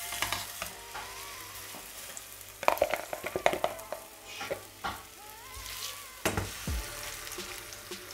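White fish fillets sizzling in hot oil in a nonstick frying pan. A metal slotted spatula scrapes and taps against the pan in a few short flurries as the fillets are moved.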